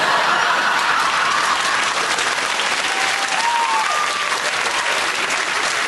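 Studio audience applauding, a dense, steady clapping that starts all at once.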